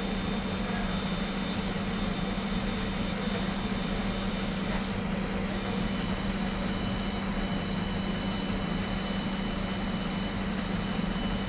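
Steady mechanical drone with a strong low hum and faint high whines; a further faint high tone comes in about six seconds in.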